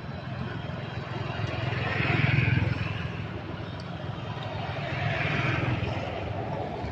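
Vehicles passing on the road, two of them swelling and fading in turn, the first loudest about two seconds in and the second about five seconds in.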